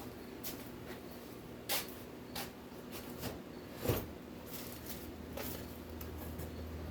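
Scattered clicks and knocks of small parts and tools being handled and moved about on a workbench during a search for a scale, with one louder knock about four seconds in, over a steady low hum.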